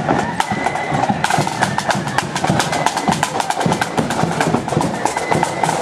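Marching flute band's side drums and bass drum playing a rapid parade beat. The snare strokes come in much louder about a second in.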